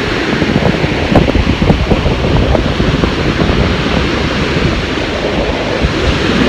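Wind buffeting the microphone, mixed with the rush of ocean surf.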